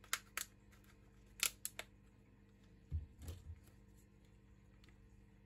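Sharp clicks and taps of fingers and nails on a smartphone's plastic frame and glass as it is handled, about five in the first two seconds, then a dull thump about three seconds in.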